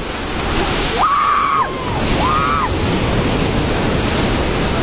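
Sea waves washing, heard as a steady rush with wind buffeting the microphone; two short high-pitched cries come about a second and two seconds in.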